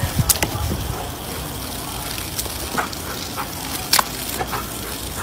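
Steady gushing and splashing of a water jet spraying up from a plastic paddling pool, with a few sharp clicks, the loudest about four seconds in.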